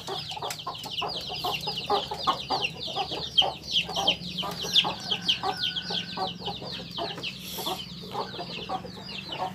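Many chicks peeping rapidly and continuously in short falling chirps, with a hen clucking underneath.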